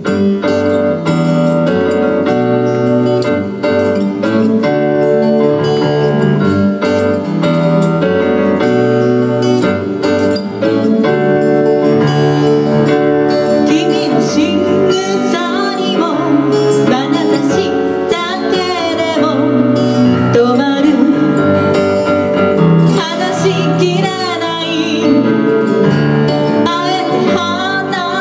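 Live acoustic-guitar and keyboard accompaniment playing a slow song's intro with steady chords and bass notes; a woman's singing voice comes in about halfway through.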